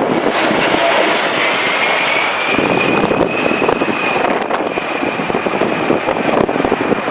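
Jet airliner on landing approach, its engines giving a high whine that rises about a second in and then holds, over a heavy rush of storm wind buffeting the microphone.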